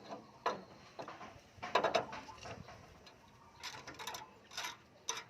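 Irregular metallic clicks and clinks of hand tools and parts as a new tie rod end is fitted into the steering knuckle, with a cluster of knocks about two seconds in.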